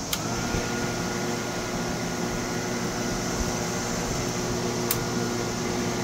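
Milwaukee M18 jobsite fan switched straight to its top speed (setting three) with a click of the dial. The motor spins up and then runs steadily, a whirring hum with a faint high whine. A single sharp click comes about five seconds in.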